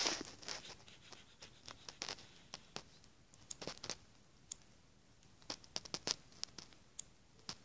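Faint, irregular scratches and clicks of fingers handling and tapping the phone that is recording, a few light ticks at uneven intervals.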